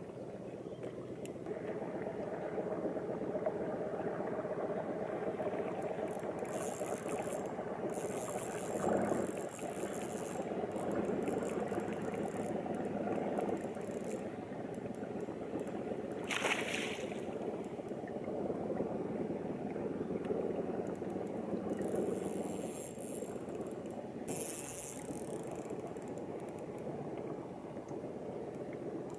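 Water lapping and gurgling against the hull of a small fishing boat, a steady low wash, with a few short hissing sounds over it, one sharper about halfway through.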